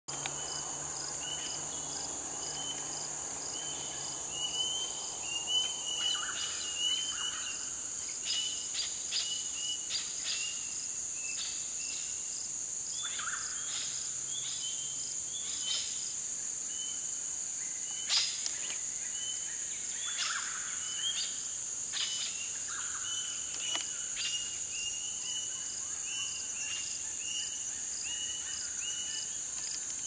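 Dusk chorus of insects in subtropical forest: a steady high-pitched drone with a short chirp repeating about once a second, and scattered sharp calls and a few lower calls from other animals throughout.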